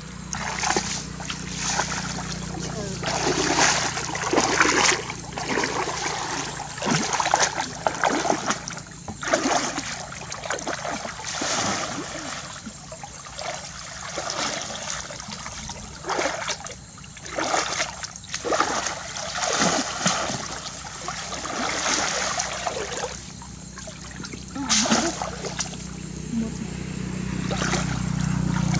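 Shallow muddy water splashing and sloshing in irregular bursts as a person wades and works a woven bamboo fish basket and bare hands through it.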